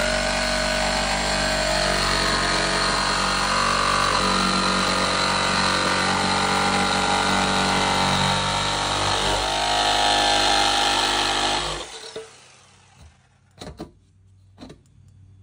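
Corded jigsaw cutting through the camper's side wall, trimming a luggage-door cut-out that was cut slightly too small. It runs steadily for about twelve seconds and then stops, followed by a few light knocks.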